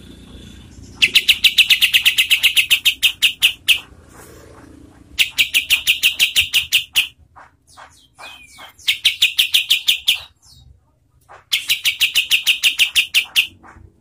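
Olive-winged bulbul (kapas tembak) calling in four loud bursts of rapid, evenly repeated notes, about nine a second. This is the chattering 'tembakan' call the bird is named for. The first and last bursts last about two to three seconds, and the middle two are shorter.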